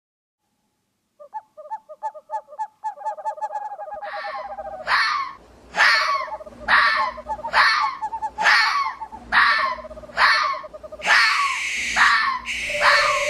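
Cartoon sound effects: after about a second of silence, a fast pulsing tone, then from about four seconds in a run of about nine short animal calls, each falling in pitch, roughly one a second, over a steady held tone. Near the end come two longer hissing noises.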